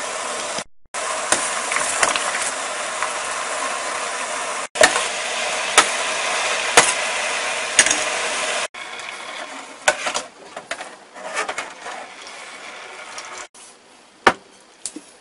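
Sauce boiling hard in a stainless steel pot, a loud steady bubbling hiss with a few sharp clicks about a second apart. About nine seconds in it drops to quieter, irregular bubbling, and near the end a cleaver cuts through a cooked chicken quarter onto a plastic cutting board with one sharp knock.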